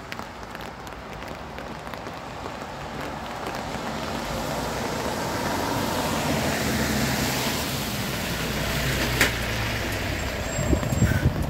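Road traffic on wet asphalt: a car passes close by with a hiss of tyres on the wet road, which swells to a peak and fades. Under it a low diesel engine hum grows louder, and there is a sharp click about nine seconds in.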